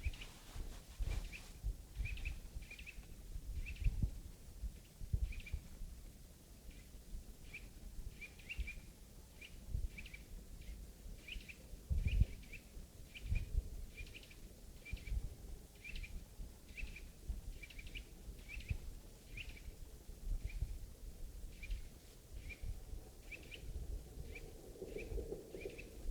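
Walking in snow: faint, muffled footfall thuds, with a short high chirp repeating about one to two times a second.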